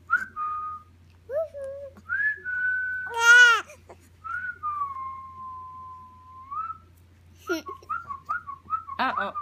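A person whistling short gliding notes and one long held note of about two seconds. A brief high-pitched vocal squeal about three seconds in is the loudest sound.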